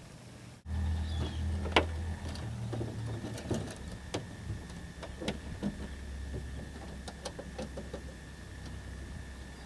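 Light clicks and taps of hands working on a Piper Pacer's engine cowling and propeller during a preflight check, over a steady low hum. There is one sharp click about two seconds in and a quick run of small clicks near the end.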